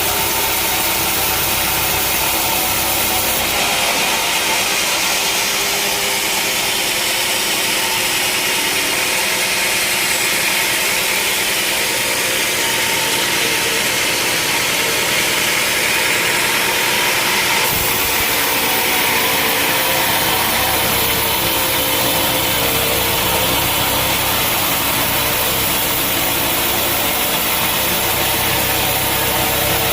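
Sawmill machinery running steadily while a saw cuts through a large log, a loud, even mechanical noise with a high hiss. The sound changes abruptly about three seconds in and again about halfway through.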